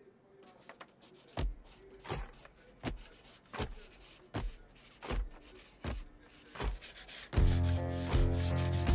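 Rhythmic rubbing strokes, evenly spaced about three-quarters of a second apart, each with a scratchy edge and a low thud. About seven and a half seconds in, louder music with a deep bass and held notes comes in.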